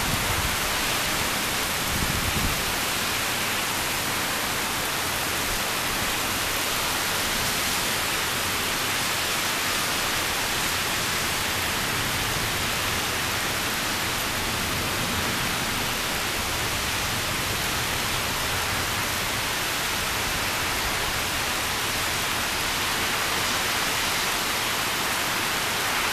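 Heavy thunderstorm downpour: a steady, dense hiss of rain. A couple of brief low thuds come in the first few seconds.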